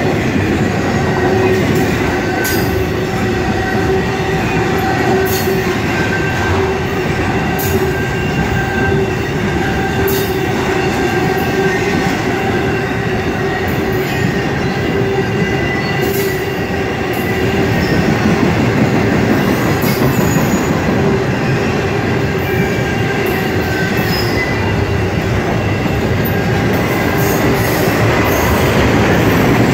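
A long intermodal freight train's double-stack container cars and trailer flatcars roll past at speed: a loud, continuous rumble of steel wheels on rail, with steady high ringing tones and scattered sharp clicks over it.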